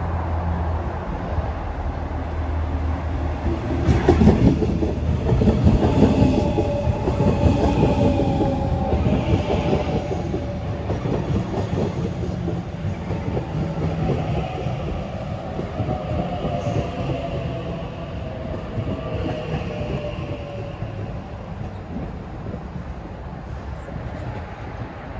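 Sydney double-deck electric train pulling into the platform alongside, its wheels clacking over the rail joints as the cars pass. A whine falls slowly in pitch as the train brakes toward a stop, and the sound eases off near the end.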